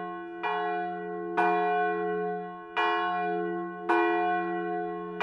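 A single church bell tolling, struck four times about a second to a second and a half apart. Each strike rings on the same set of notes and fades before the next, and a fifth strike lands right at the end.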